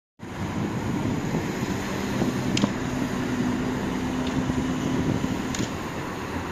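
Street traffic at night as picked up by the Xiaomi 12T Pro's microphones: cars running along a multi-lane road. A steady low engine drone runs from about two seconds in to about five and a half, with a couple of short sharp clicks.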